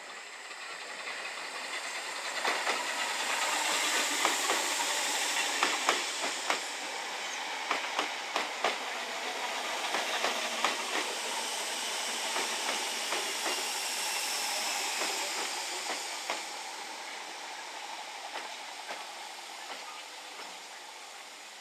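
London Overground Class 315 electric multiple unit running along the platform, a steady rush of wheels and running gear with many quick clicks of the wheels over rail joints. It builds over the first few seconds and fades near the end as the train moves on.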